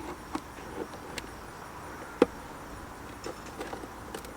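Scattered small clicks and scrapes of a tool prying at the plastic clips of a car's side-mirror cap, with one sharp, loud plastic click about two seconds in.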